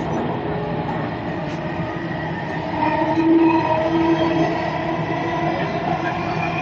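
Delhi Metro Blue Line train running, heard from inside the carriage: a steady rumble of wheels on track, with a humming tone from the train joining about three seconds in.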